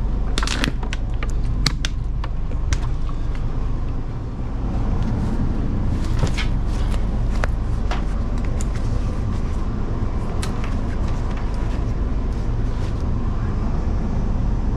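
A backpack being handled and pushed onto a train's overhead luggage rack: scattered rustles, clicks and knocks of fabric, straps and buckles, over a steady low hum in the carriage.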